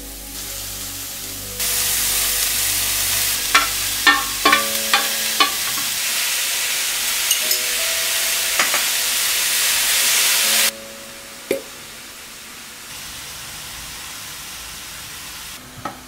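Julienned carrots and zucchini sizzling in a stainless steel frying pan as a wooden spatula stirs them, with a run of sharp clicks and taps as the spatula knocks the pan. The sizzling cuts off suddenly about two-thirds of the way through.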